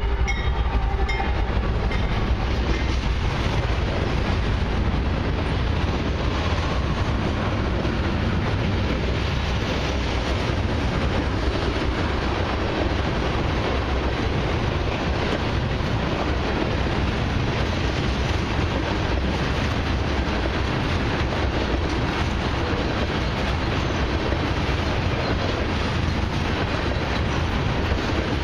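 Canadian Pacific loaded crude oil freight train rolling steadily through a road crossing: a continuous heavy low rumble of tank-car wheels on the rails, with the lead diesel locomotive passing at the very start.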